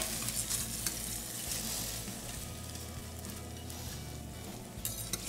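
Spaghetti aglio e olio sizzling in hot oil in a stainless-steel sauté pan as it is turned and twirled with metal tongs. A few sharp clicks of tongs against the pan come at the start, about a second in, and near the end.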